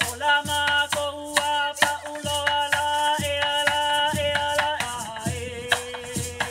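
Hula music: a voice singing a melody in held notes over a steady low beat on a gourd drum (ipu), with the sharp shakes of feathered gourd rattles ('uli'uli) in time.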